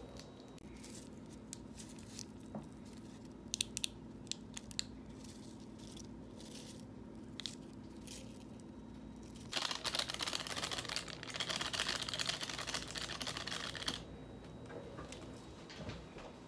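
Crinkling of a foil-lined ramen seasoning packet as it is opened and emptied over the noodles: a few sharp crinkles, then from about ten seconds in a dense, louder rustling crinkle for about four seconds.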